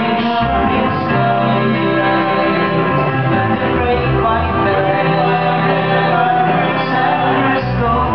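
Live folk-rock band playing a song: a plucked string instrument with bass and other instruments holding sustained notes, and a man singing at the microphone.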